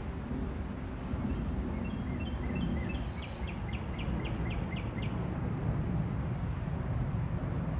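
Steady low outdoor rumble, with a small bird singing a quick run of repeated short notes, about four a second, from about two to five seconds in.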